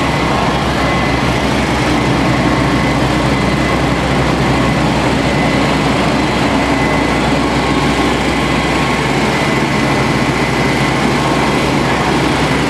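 Steady engine drone of fire apparatus running at the scene, holding a constant pitch with a faint steady whine above it and no change in speed.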